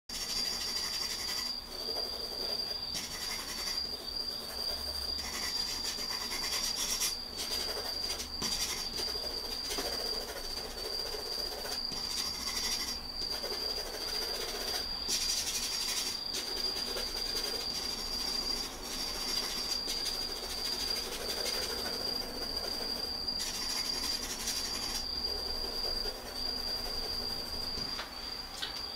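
Graphite pencil shading on drawing paper, scratchy strokes that come and go in stretches of a second or two with short pauses, over a steady high-pitched whine.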